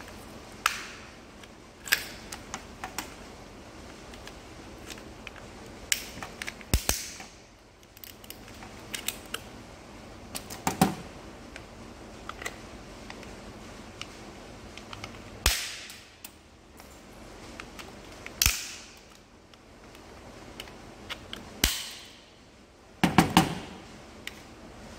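Old Jeep TJ steering-column clock spring's plastic housing being pried and broken apart with pliers: a series of sharp snaps and cracks a few seconds apart, with a quick cluster of three near the end.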